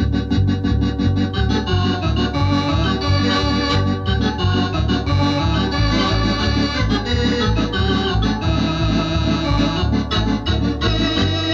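A Thomas electronic home organ playing a lively piece, with a steady pulsing bass under full chords, heard from a restored early-1970s demonstration cassette with some tape wow and flutter.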